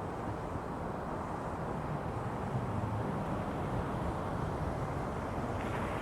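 Steady low rumbling noise with no distinct tones or impacts.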